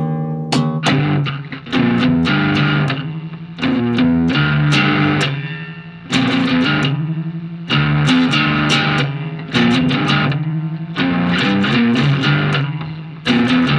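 Guitar music, electric guitar over bass, playing a riff that repeats about every two seconds.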